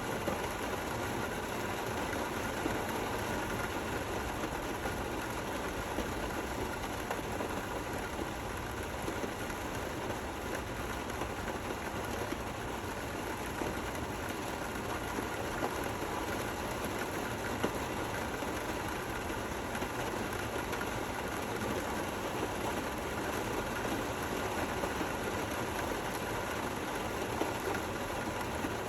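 Steady rain falling, an even hiss with an occasional slightly louder drop.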